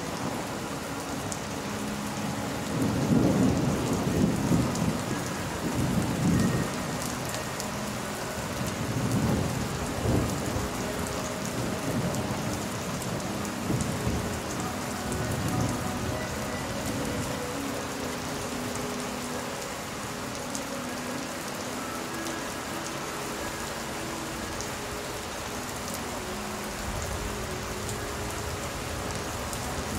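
Steady rain falling, with rolls of thunder rumbling. The loudest rumbles come about three to six seconds in, with further rolls around ten and fifteen seconds in.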